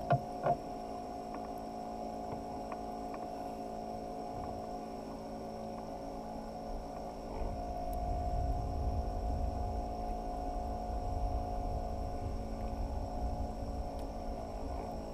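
Steady hum made of several fixed tones, with two sharp knocks about half a second apart at the start and a low rumble joining in about halfway through.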